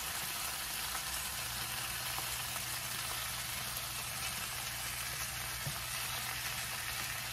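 Italian sausages frying in a skillet, a steady sizzle, as sliced bell peppers and onions are scraped into the pan from a cutting board with a wooden spatula. A low steady hum comes in about a second and a half in.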